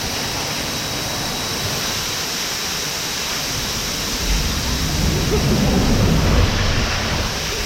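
Steady rushing water at a water park, an even hiss, with a low rumble from about four seconds in until near the end.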